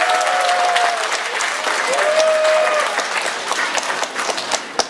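Audience applauding, with a few long cheering shouts over the clapping early on; the applause thins to scattered claps near the end.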